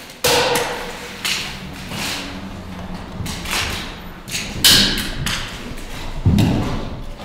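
Boots stepping over a floor scattered with bent metal paper clips: a run of irregular thumps with scraping, crunching noise, about six of them, the loudest about four and a half seconds in and a deeper thud near six seconds.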